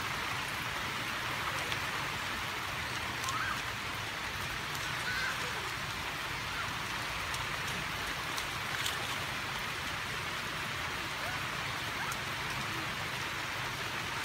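Steady rain falling on shallow standing water, an even hiss, with a few faint ticks.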